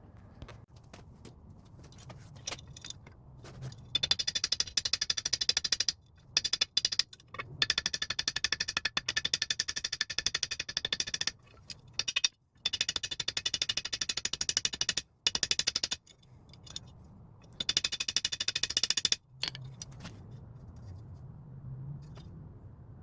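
Cleaver handle pins being peened over with very rapid, ringing metal-on-metal hammer strikes, in several runs that stop and start again.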